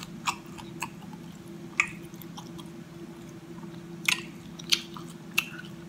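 Close-miked chewing of a mouthful of Chinese takeout, with wet mouth clicks and smacks at irregular moments, the loudest about two and four seconds in. A steady low hum runs underneath.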